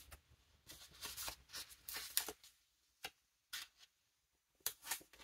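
Paper handling at a desk: a planner sticker sheet and planner pages rustling and tapping in a run of short, light scrapes, with a brief quiet pause near the end.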